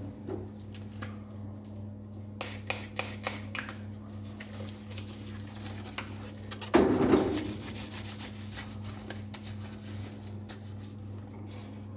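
Steady hum of a biosafety cabinet's blower, with gloved hands and a protective suit rubbing and rustling. A quick run of light clicks comes about two and a half seconds in, and a louder rustle about seven seconds in.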